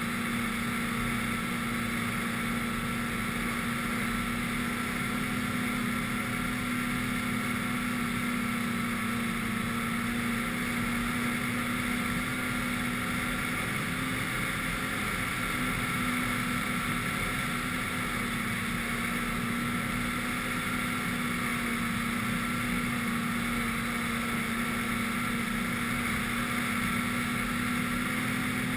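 Snowmobile engine running steadily at cruising speed, its drone holding an even pitch and level throughout.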